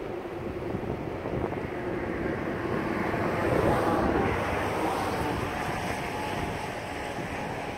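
A road vehicle passing on the bridge: its tyre and engine noise swells to a peak about halfway through, then fades away.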